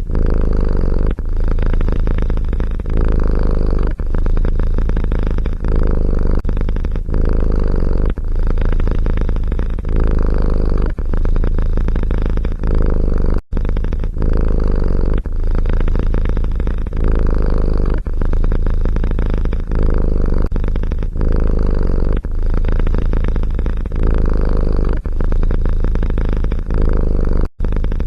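A domestic cat purring loudly and close up, with a steady low rumble that pulses about once a second with its breathing. It breaks off briefly twice, about halfway through and near the end.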